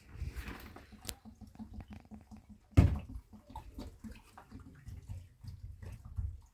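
Water poured from a plastic bottle into a potted houseplant, with small handling clicks and one loud knock about three seconds in.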